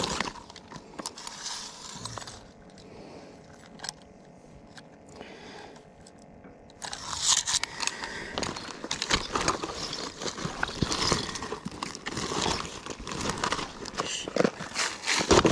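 Close handling noise as a backpack tackle bag and its gear are rummaged through: rustling, crinkling and small clicks. It is quieter for a few seconds, then busier from about seven seconds in.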